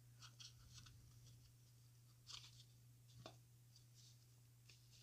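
Faint scattered clicks and light rustles of a cable's plastic holder and packaging being handled, over a low steady hum; otherwise near silence.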